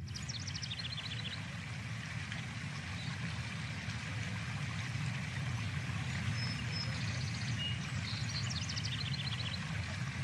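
A rocky stream rushing over boulders in a steady wash of water. Small birds give short chirping trills near the start and again near the end.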